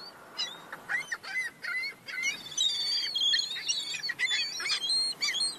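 Downy seabird chicks peeping: many short, high chirps that rise and fall and overlap, thickest in the middle of the stretch. These are the begging calls of chicks being hand-fed.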